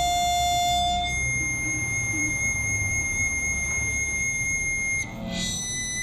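Electric guitar strings held in continuous sustain by a homemade electromagnetic sustainer driver, sounding as steady, pure, buzzer-like high tones. A lower note fades out about a second in, leaving a higher held tone, and there is a brief warble just after five seconds.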